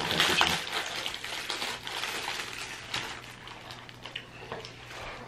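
Foil snack wrapper crinkling and crackling as it is torn open and pulled apart by hand, loudest in the first second or so, then lighter crinkles.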